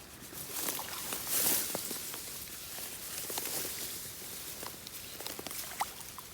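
Close rustling and scuffing with scattered light clicks, loudest about one and a half seconds in.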